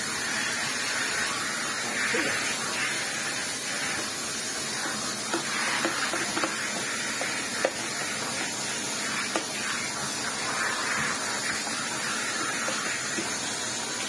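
A vacuum cleaner running steadily, sucking up dirt and cobwebs, with scattered small clicks.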